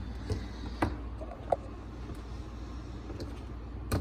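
A few light clicks and taps from handling things, scattered over a steady low hum, with the sharpest tap near the end.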